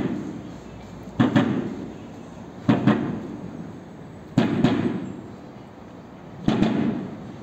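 A series of five loud knocks, each a quick double impact that dies away within about a second. They come at uneven gaps of one and a half to two and a half seconds, over a steady low background rumble.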